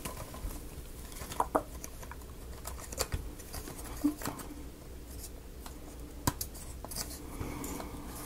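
Sparse light clicks and taps, about eight of them at uneven intervals, from small laser-cut wooden model parts and tiny screws being handled during assembly.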